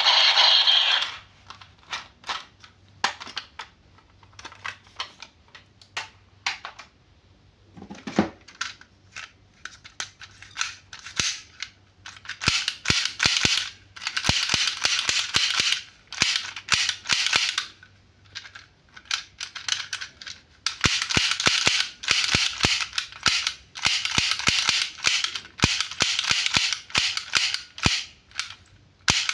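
Plastic toy packaging crackling and clicking as it is handled and opened, in rapid bursts of sharp crackles with short pauses between them.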